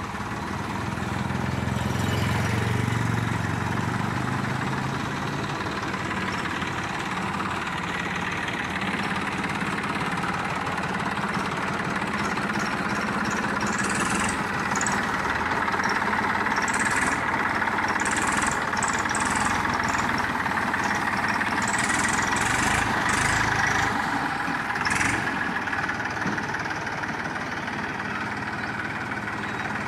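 Farm tractor's diesel engine running steadily near idle, a little louder with a deeper note for the first few seconds. Short high clinks or squeaks come and go over it midway.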